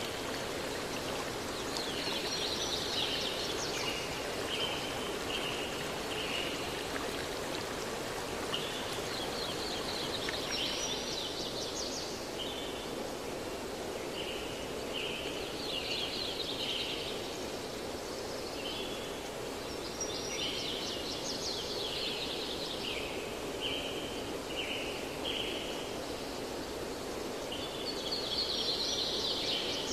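Steady rush of a flowing stream, with a songbird singing bursts of quick high chirps every few seconds.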